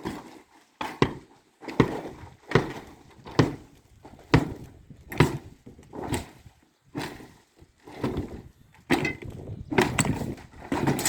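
A steady series of knocks, about one every 0.8 seconds, each with a short ringing tail, from footsteps or tool strikes on hard material.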